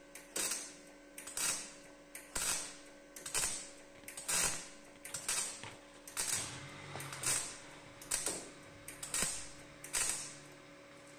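MIG welder's arc crackling in short bursts, roughly one a second, laying a seam on a steel car-body wheel arch panel. A steady hum runs underneath.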